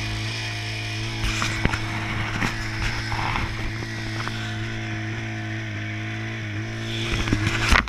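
Arctic Cat snowmobile engine idling at a steady pitch, with knocks, scrapes and rustles from the handlebar camera being handled and unclipped from its mount, loudest near the end.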